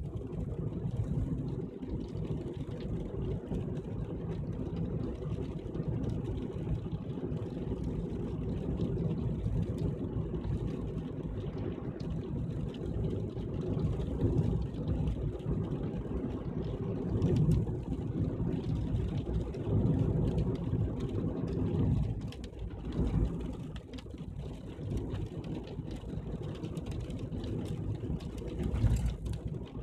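Car driving along a road: steady engine and tyre rumble, swelling briefly a few times.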